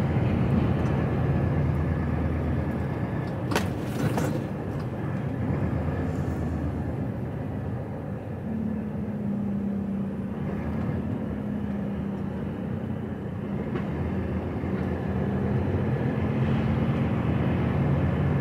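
HGV lorry's diesel engine and road noise heard from inside the cab, moving slowly in traffic. There is a short click about four seconds in, and a steady engine hum comes in about halfway through.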